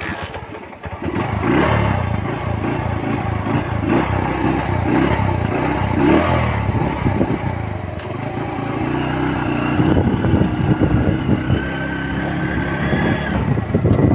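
Motorcycle engine starting up and running with uneven pulsing throttle blips, then pulling away and accelerating with a steadier, slowly rising note in the second half.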